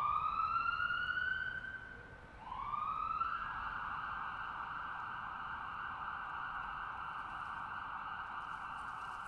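Ambulance siren winding up in pitch, dropping away briefly about two seconds in, then winding up again and holding a steady high tone.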